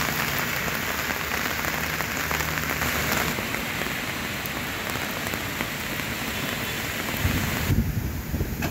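Heavy rain falling steadily, a dense even hiss of drops. Near the end it gives way to gusty wind buffeting the microphone.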